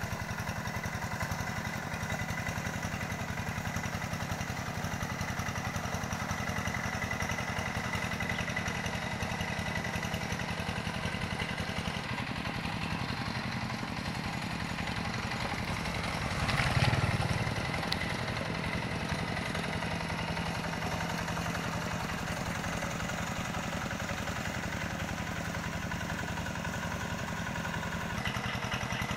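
Two-wheel hand tractor's single-cylinder diesel engine running steadily under load as it pulls through a flooded rice paddy, with a fast, even firing beat and a steady high whine. The engine grows louder for about a second a little past the middle.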